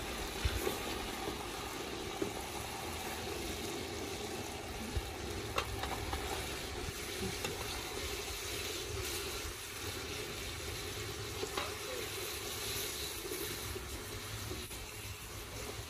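Chicken and tomato sauce sizzling in an aluminium pot over a wood fire while a metal ladle stirs it, the ladle clinking against the pot a few times.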